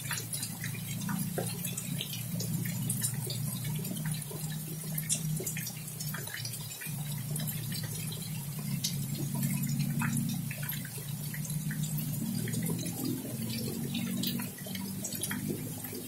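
Steady rain falling, with many close drips and splashes scattered through it, over a low steady hum.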